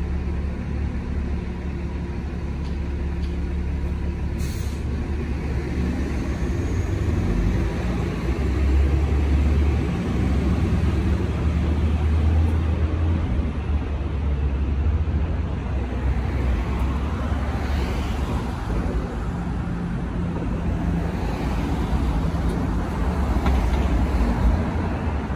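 Road traffic at an intersection: vehicle engines running with a steady deep rumble as cars and buses pull away from the light.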